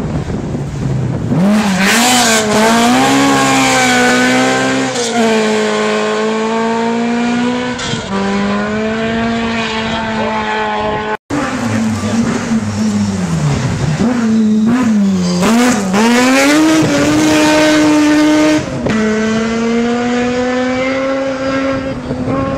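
Classic rally car engines at full throttle on a gravel stage, the pitch climbing and dropping sharply through each gear change as the cars come through at speed. There are two passes, split by a sudden break about eleven seconds in.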